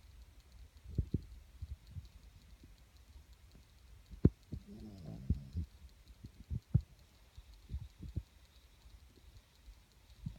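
A sleeping puppy dreaming: a scattering of short, soft low puffs and thumps, with a brief whimper about five seconds in.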